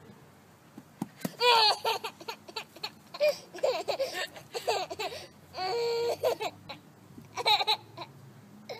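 Toddler laughing in a string of short bursts, with one longer held note about six seconds in.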